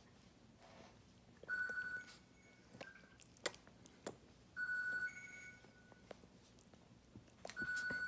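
A short electronic tone sounds three times, about three seconds apart, each a steady note followed by a brief higher note. A few faint clicks and rustles fall between them.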